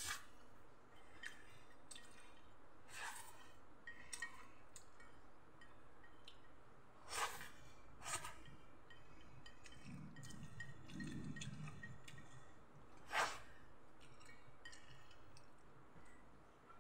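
Close eating sounds of a person slurping and smacking pancit noodles off a plate. The wet clicks and slurps are mostly faint, with several louder ones standing out, and a short low murmur comes about ten seconds in.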